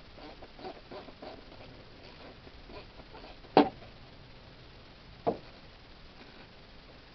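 Hand tools working on the engine: faint small clicks and rattles, then two sharp metallic knocks, the first and loudest about halfway through and a smaller one about a second and a half later.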